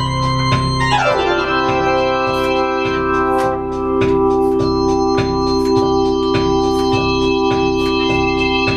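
Instrumental break of an upbeat Christmas pop song: an organ holds chords, and about a second in the whole chord bends down in pitch before settling on a new sustained chord, over a steady drum beat.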